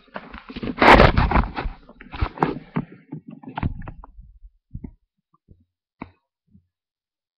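Loud rustling and bumping close to the microphone for about three seconds, strongest about a second in, then a few scattered soft clicks and taps.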